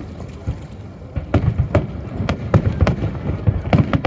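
Fireworks shells bursting overhead: after a lull of about a second, a rapid run of sharp bangs with a low rumble between them.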